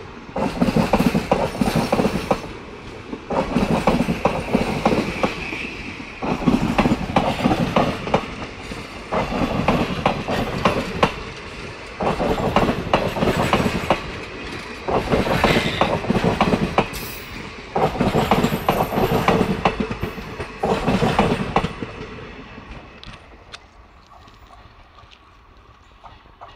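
Indian Railways passenger coaches of a departing express rolling past close by, their wheels clattering over the rail joints in a loud burst about every three seconds as each coach's bogies go by. The clatter fades away once the last coach has passed, about 22 seconds in.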